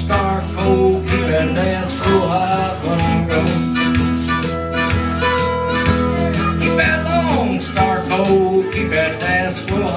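Live country band instrumental break: a harmonica plays lead lines with bent, sliding notes over strummed guitar and a steady bass.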